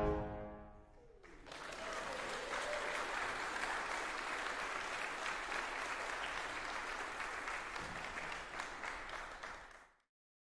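The final chord of a choir anthem with piano, clarinet and trombone dies away in the room during the first second. Then the congregation applauds steadily until it cuts off abruptly near the end.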